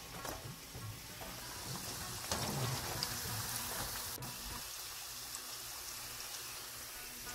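Pakoras sizzling in hot oil in a pan, a steady crackling hiss, with a few faint knocks of a wire strainer.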